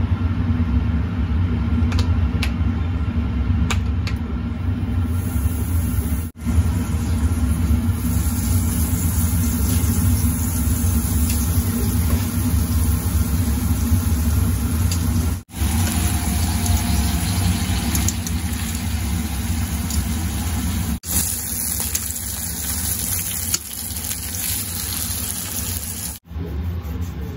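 A steady low motor rumble runs under the hiss of blocks of beef searing in butter in a frying pan. The sound drops out for a moment four times.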